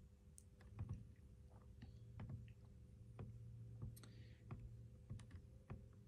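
Faint computer mouse clicks, a dozen or so at irregular intervals, over a low steady hum.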